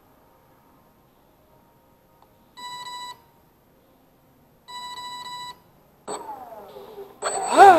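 Two long electronic beeps, the brushless speed controller arming, then the RC airboat's brushless outrunner motor and three-blade propeller spin up twice with a rising whine. The second run-up is louder, peaking and falling away near the end.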